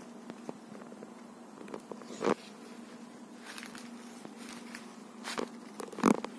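Footsteps and crackling of dry sugarcane leaves as someone walks a path between tall cane rows, in irregular crackles with a louder one about two seconds in and another near the end, over a faint steady hum.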